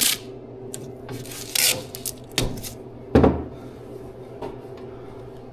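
Hand work on a car dash, handling metal trim and tape: a few short scrapes and knocks over a low steady hum, the loudest a knock about three seconds in.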